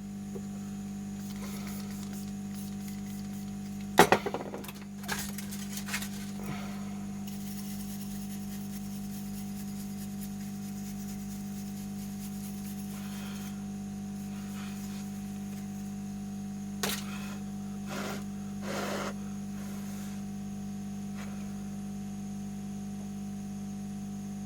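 Steady electrical hum with a few sharp clicks and knocks of small objects handled on a workbench, the loudest about four seconds in and more near the end.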